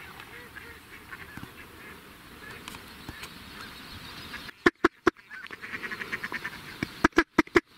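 Mallards quacking: a faint chatter of calls at first, then, a little past halfway, loud sharp quacks in quick runs of four or five.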